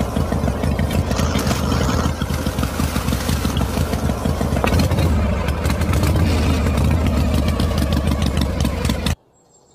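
Miniature model grain mill running, its small motor humming steadily under a dense rattle of rice grains passing through the chute. It cuts off suddenly about nine seconds in.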